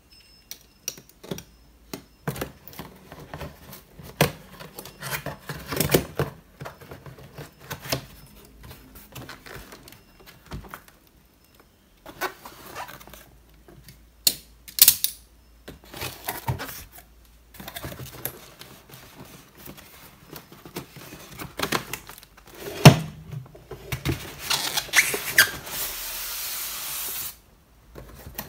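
Cardboard box being opened and unpacked: irregular taps, clicks and rustling of cardboard flaps and wrapping paper, with one sharp knock about two-thirds of the way through and a longer scraping slide near the end as the foam-packed wooden easel is drawn out of the box.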